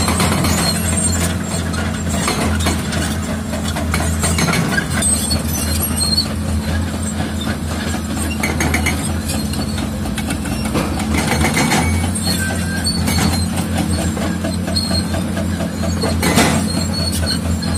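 Heavy diesel crawler machinery working, mainly a Caterpillar D6R bulldozer: a steady engine hum with continual clanking and rattling from its steel tracks and the rock.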